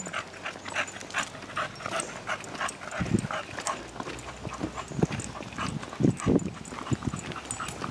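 Footsteps of a person walking a leashed bulldog along a paved trail: a quick, steady run of light clicks and scuffs, with a few dull low thumps about three, five and six seconds in.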